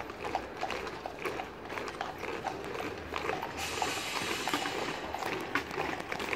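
Boots of a column of Foot Guards marching on the road: many sharp, uneven footsteps clicking. The drums are carried but not played. A hiss rises over the steps for a second or so midway.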